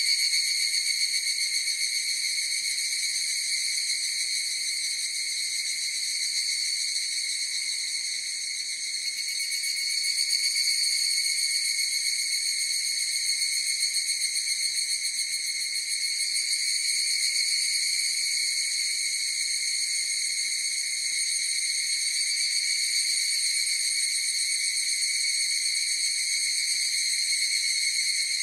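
A chorus of higurashi (evening cicadas) calling without a break, a high, ringing insect drone.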